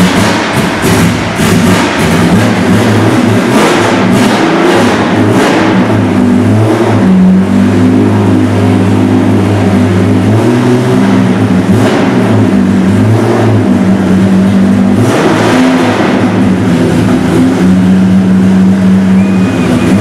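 BMW 3.0 CSL racing straight-six running while stationary: an uneven idle whose pitch holds and shifts between steady levels, with repeated throttle blips, most of them in the first few seconds and again past the middle.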